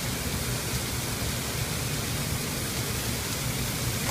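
Venison medallions sizzling steadily in a hot pan just after being flipped, over a low steady hum.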